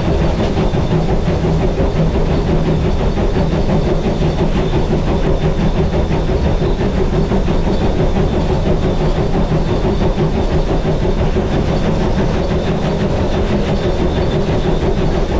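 Polson 70 steam locomotive under way, heard from inside its cab: a loud, steady rumble and fast, even clatter of the running engine and wheels on the rails.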